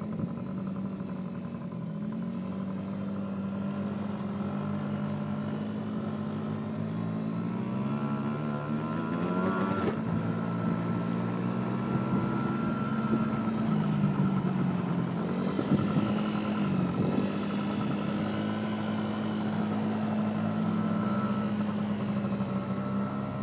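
Small youth ATV engine running, its pitch rising and falling as the throttle is worked, with a climb in pitch about eight to ten seconds in.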